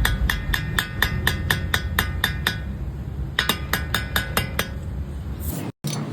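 Toyota Camry's worn front CV joint clicking rapidly and evenly, about four clicks a second, over the low rumble of the car. The clicks break off about halfway through and resume for a second or so: the typical sound of a failing CV joint.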